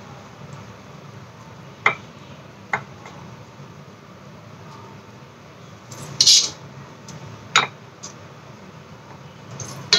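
Utensils clinking against a glass baking dish while masala is spread over a yogurt layer: three sharp clicks and a short scrape about six seconds in, over a low steady background noise.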